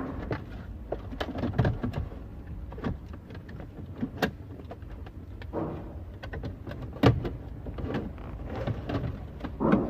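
Scattered clicks, knocks and rustles of a car head unit and its wiring loom being handled and pushed into the dash cavity. A sharp knock about seven seconds in is the loudest.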